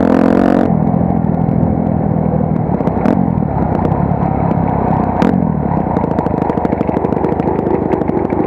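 Honda CRF250R's single-cylinder four-stroke engine running as the bike rides a dirt trail, with a short rev right at the start. From about six seconds in it drops to a slower, even beat as the bike slows to a stop.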